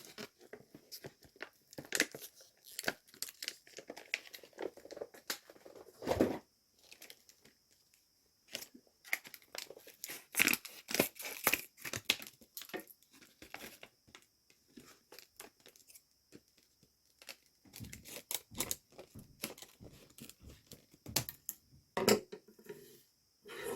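Packaging being torn open and handled: irregular crackles, crinkles and tearing sounds, with a pause of a couple of seconds about a third of the way in.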